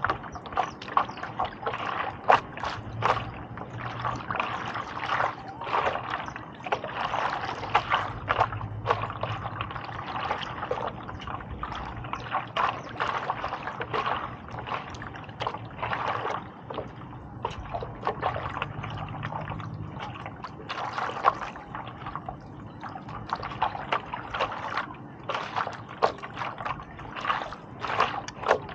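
A stand-up paddleboard paddle working through the water, with irregular splashing and trickling.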